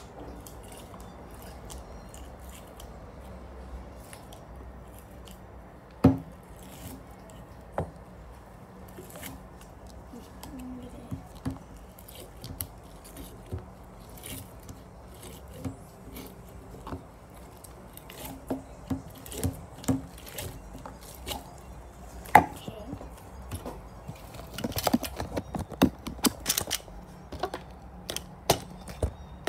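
Hands handling a package and slime: scattered sharp clicks and crinkles, with a louder snap about six seconds in and another about twenty-two seconds in, growing busier near the end.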